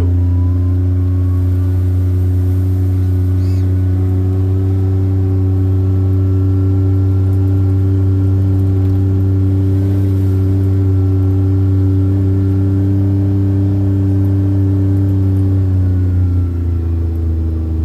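Car engine running at a steady speed, a constant drone with road noise under it, easing off near the end.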